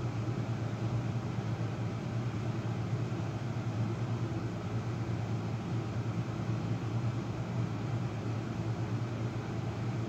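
Steady low mechanical hum with an even hiss over it, unchanging throughout.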